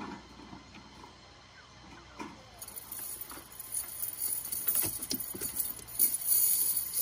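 Lead sinkers on a cast net clinking and rattling as the net is gathered and lifted. The clinking is sparse at first and grows busier in the second half.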